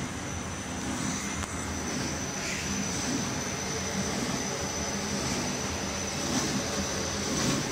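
QZ1300-2 paper-cutting machine running: a steady mechanical noise with a thin, constant high whine over it.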